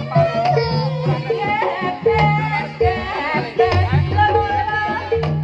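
Live Javanese jaranan ensemble music: drums and a short struck note repeating at an even pulse, with low sustained notes beneath and a wavering melody line above.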